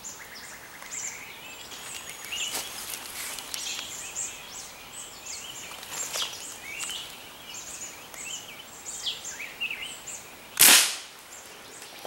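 Small birds chirping and calling throughout; about ten and a half seconds in, a single sharp shot from the scoped rifle fired up into the tree canopy.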